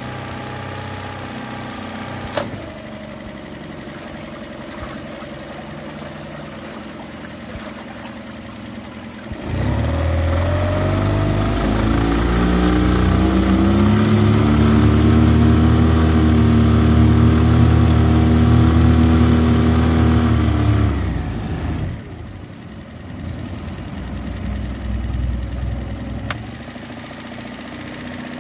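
Mariner 9.9 hp four-stroke outboard motor idling in a test tank. About nine seconds in the throttle is opened and the revs climb and hold high for roughly twelve seconds while the propeller churns the water. The motor then drops back to idle.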